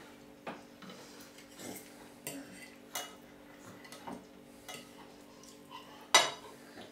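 A spoon scraping and tapping on a ceramic plate of food: a scatter of light clicks, with one sharper clink about six seconds in.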